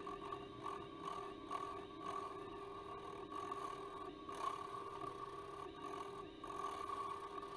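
Wood lathe running with a steady motor whine while a hand-held turning tool cuts the outside of a spinning yew bowl blank. The cutting noise swells and eases as the tool bites in and backs off.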